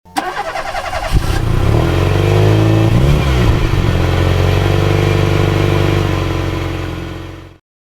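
A vehicle engine sound effect starting up at once and running steadily, with a brief rev and dip in pitch about three seconds in. It cuts off suddenly about seven and a half seconds in.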